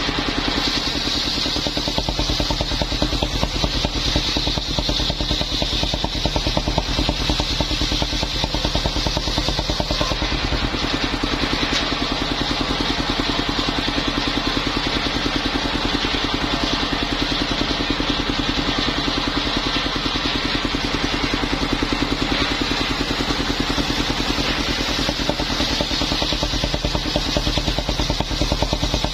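Engine of a mobile circular sawmill running steadily, with a constant high whine over the engine note.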